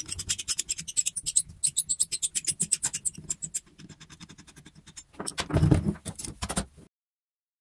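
Rusty cast-iron table vice being handled: a fast run of small metallic clicks and rattles for about three and a half seconds as its screw, handle and sliding jaw are worked by hand. A few seconds in come several heavier clunks as the vice is set down on the workbench, and the sound cuts off suddenly near the end.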